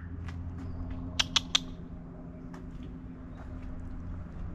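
Three quick, high kissing squeaks about a second in, made with the lips to call a cat, over a steady low hum.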